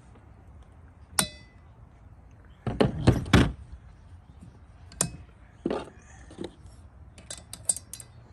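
Metal tools and valve parts knocking and clinking on a VQ35DE cylinder head during valve removal: a single ringing ding about a second in, a cluster of heavier knocks around the middle, then lighter clicks toward the end.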